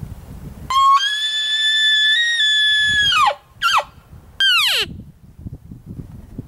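Elk bugling: a long, high whistle held for about two and a half seconds, then two short calls that slide steeply down in pitch.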